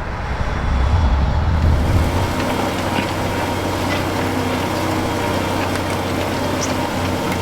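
Ford TW-25 tractor's six-cylinder turbo diesel engine working steadily under heavy load at about 2,000 rpm, pulling a seven-furrow reversible plough through heavy soil. The engine drone is a little louder for the first couple of seconds, then holds even.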